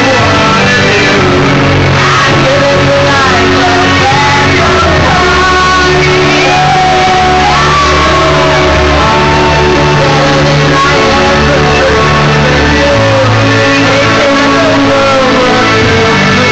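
A rock song with a belted lead vocal, holding long wavering notes over bass and band, played loud over a club's sound system.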